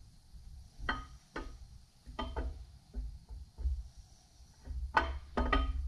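Camshaft being eased through the cam bearings of a Mopar 440 big-block on a cam handle, giving a series of irregular light clicks and knocks as it goes in.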